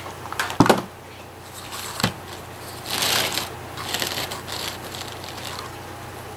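Two sharp knocks on the tabletop, about half a second and two seconds in, then the dry rustle and scrape of a pleated paper medallion being picked up and handled.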